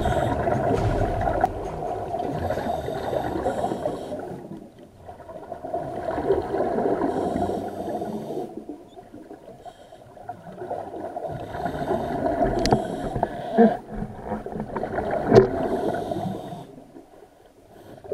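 Scuba diver's exhaled bubbles gurgling out of the regulator underwater, heard through an underwater camera. The bubbling comes in bursts of a few seconds with quieter breaks between breaths. Two sharp clicks come in the second half.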